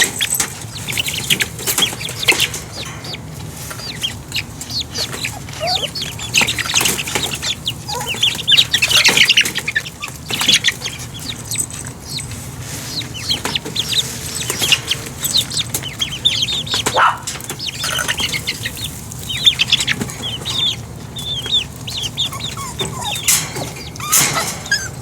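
Young chickens peeping, many short high chirps coming in flurries, with a few sharp knocks among them.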